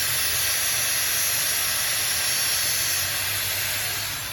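Steady hissing rasp of metal being ground, as the cut end of a timing chain is ground down to fit. It holds an even level throughout.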